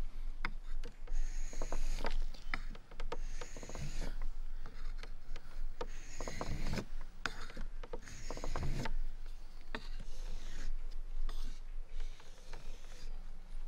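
Steel knife blade scraped across a wet 800-grit Japanese water stone in repeated sharpening strokes, about one every two seconds, with small clicks between them as the blade is repositioned. The strokes are honing the edge bevel nearest the handle.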